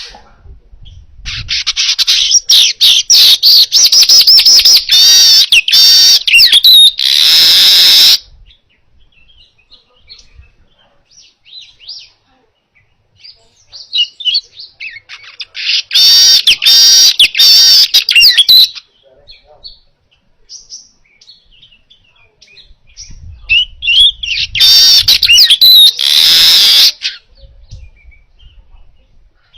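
Manyar (weaver bird) singing: three loud bouts of fast chattering song, each ending in a harsh, hissing buzz, with soft scattered chips between them.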